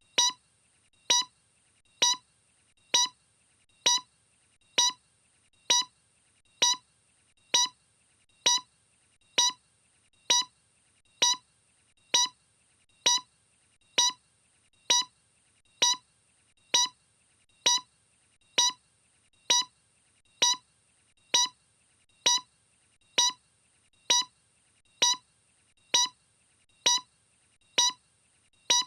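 A steady train of short, identical electronic beeps, evenly spaced at about one every 0.6 seconds, with silence between them.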